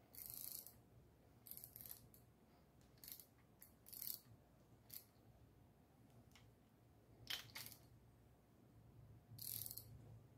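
Faint, scattered clicks of a ratchet wrench and socket turning a rocker arm nut down on a hydraulic-lifter V8, taking the play out of a loose rocker.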